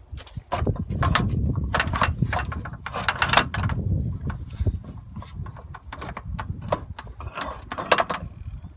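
Irregular knocks and clunks of an aluminium rear wing and its mounting brackets being handled and set against a car's hatch, over a steady low rumble.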